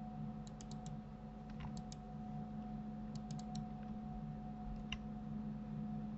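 Light clicks of a computer mouse and keyboard in small clusters of two to four, over a steady low electrical hum.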